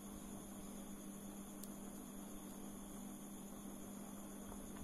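Steady low electrical hum over a hiss, with one faint tick about a second and a half in as small metal reel parts are handled with tweezers.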